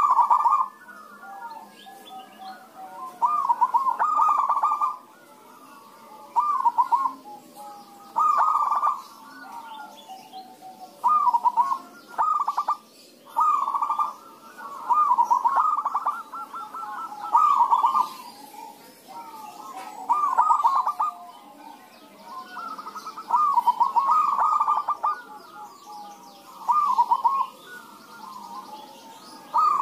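Several zebra doves (perkutut) cooing back and forth: about a dozen loud bursts of quick, rolling coos, each a second or two long, with softer cooing between them.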